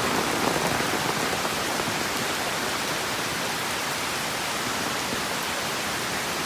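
Steady rain falling in the rainforest, an even hiss that stays level throughout.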